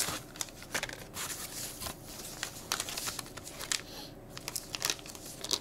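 Packing foam and anti-static bags rustling and crinkling as a small parcel is unwrapped by hand: a string of short, irregular crackles and rustles.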